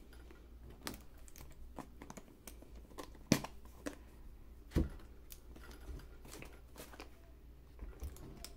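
Cardboard product box being handled and opened by hand: irregular taps, clicks and scrapes of fingers and card, with a sharp knock about a third of the way in and a duller thump a little after the middle.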